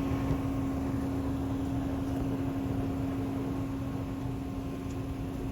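Steady mechanical hum with one constant low tone over a background hiss, unchanging throughout.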